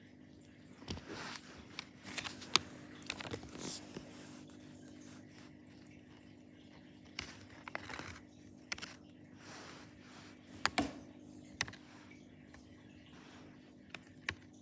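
Small close-up handling noises: scattered clicks, taps and short crinkly scrapes, a few of them sharper and louder, over a steady low hum.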